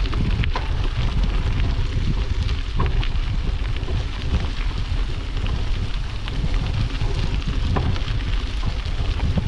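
Wind buffeting the microphone on a moving bicycle: a steady, rumbling rush with scattered faint clicks.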